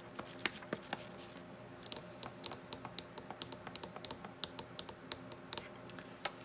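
Quick, irregular light clicks and ticks from craft materials being handled on a tabletop, thickest in the middle of the stretch.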